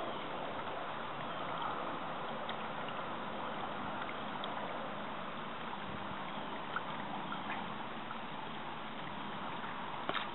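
Steady, fairly quiet hiss of trickling, gurgling pond water, with a few faint clicks.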